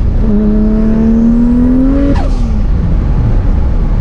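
Turbocharged Toyota Supra 2JZ inline-six pulling hard on boost, its note rising for about two seconds with a high turbo whistle climbing over it. About two seconds in the throttle snaps shut with a short burst of noise, and the revs drop away.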